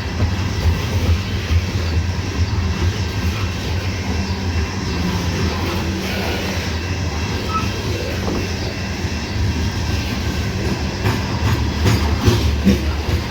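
Loaded coal cars of a long freight train rolling past, a steady low rumble of steel wheels on the rails with scattered clicks.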